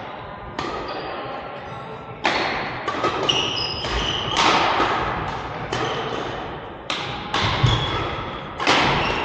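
A badminton rally: rackets striking the shuttlecock again and again, a sharp hit about every half second to second, echoing in the hall, with a few short squeaks between hits.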